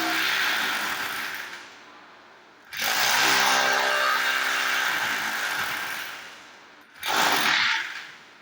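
A power tool run in three bursts, two long and one short near the end, each starting suddenly and winding down as the trigger is let go.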